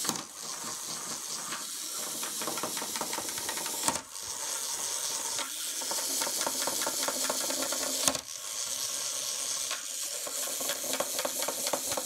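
Clockwork motor of a wind-up toy elephant running as the toy walks across a wooden tabletop: a fast, even ticking and whirring. It breaks off briefly with a sharp click about four and eight seconds in.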